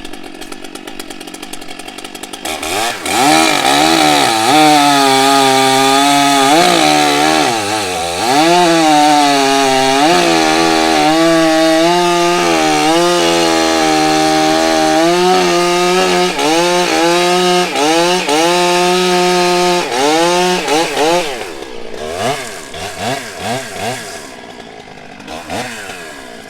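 Two-stroke chainsaw at full throttle cutting through a log. The engine pitch dips repeatedly as the chain loads up in the wood, then recovers. After about twenty seconds it drops back, with a few short revs near the end.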